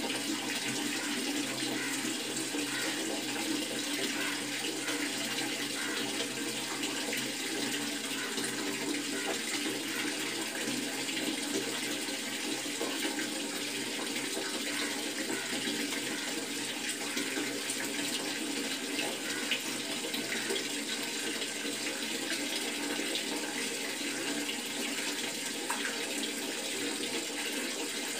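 Water running steadily from a tap, an even rushing that goes on without a break.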